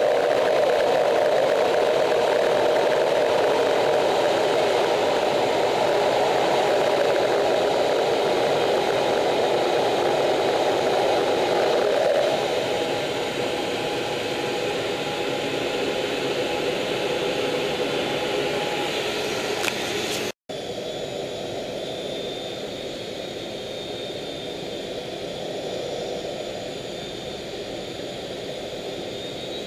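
Steady jet noise inside an F/A-18 cockpit in flight: engine and airflow rushing with a low hum. The level drops about 12 s in, cuts out for an instant about 20 s in, then continues quieter with a faint high whine.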